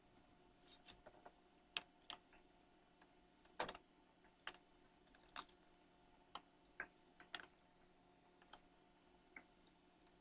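Faint, scattered small clicks and taps from a sponge and a small photopolymer stamp being handled in a plastic tub of water, irregular and a second or so apart; the loudest knock comes about three and a half seconds in.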